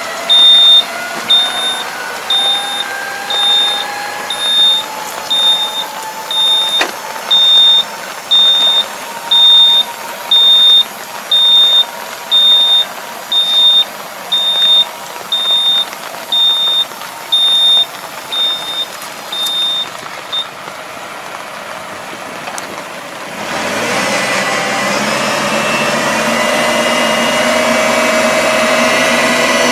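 Warning beeper sounding about once a second, one short high tone each time, while the hydraulic wings of a Niplo TY312 wing harrow unfold on a tractor, over the tractor's running engine. The beeping stops about two-thirds of the way through. A few seconds later the engine speeds up and the harrow's rotary starts turning, much louder.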